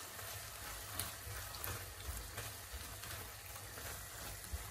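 Minced meat sizzling with a soft, steady hiss in a frying pan as a silicone spatula stirs it, with a few light taps and scrapes.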